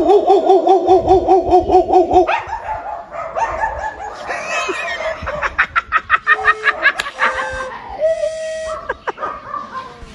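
A person imitating animal calls with the voice: a rapid warbling trill for about two seconds, then a jumble of short clucking calls, a quick run of clicks and a few brief whistled tones.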